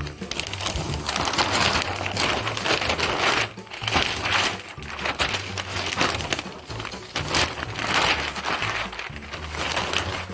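Gift-wrapping paper rustling and crinkling in irregular swells as it is folded and handled around a present.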